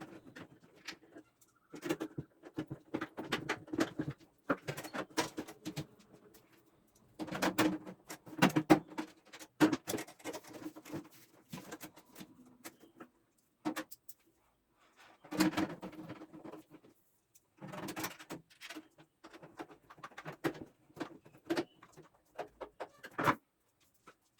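Bursts of clicks, knocks and rattles from a Godrej microwave oven's metal casing and parts being handled as the oven is put back together, coming in clusters of a second or two with short pauses between.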